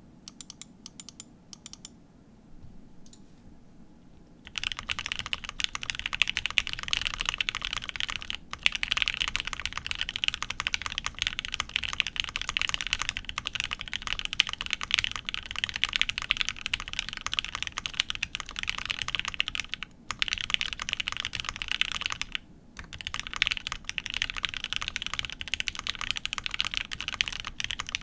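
Typing on a polycarbonate Tengu mechanical keyboard with lubed Gateron Ink switches, a polycarbonate plate and GMK keycaps. A few single keystrokes come first, then from about four seconds in steady fast typing with brief pauses.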